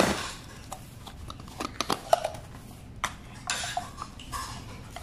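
Steel tweezers and a small plastic vial stuffed with tissue being handled: a cluster of sharp clicks and taps about a second and a half to two seconds in, then tissue paper rustling.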